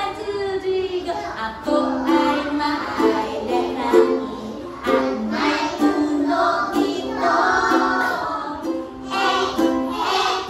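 A woman singing a simple children's song while strumming a ukulele.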